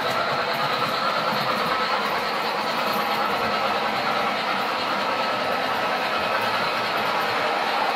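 O scale model train running along the layout track, a steady rolling mechanical noise.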